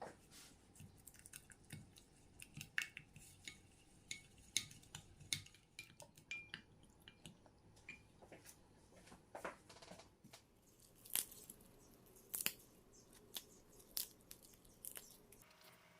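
Irregular small taps and clinks of kitchen utensils against dishes, some with a brief ringing note, as food is handled and prepared.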